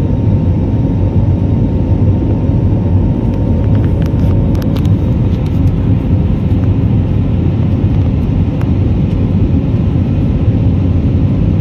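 Loud, steady low rumble of aircraft engines and rushing air heard inside an airliner's cabin in flight, with a faint steady hum above it.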